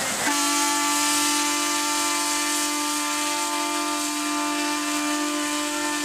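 Steam whistle of the paddle steamer Rhône blowing one long steady blast, starting about a third of a second in. It sounds two close low notes together over a hiss of escaping steam.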